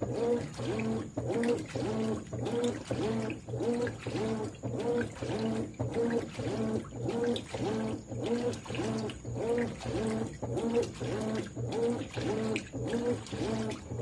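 Consul 13 kg top-load washing machine agitating a full load: the agitator swings back and forth at roughly two strokes a second, the motor's whir rising and falling with each stroke over a steady hum, with water sloshing through the clothes.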